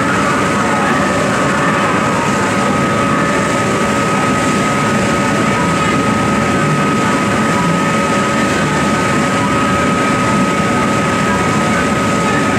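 A ferry boat under way: its engines running steadily with a constant whine, over the rush of wind and water.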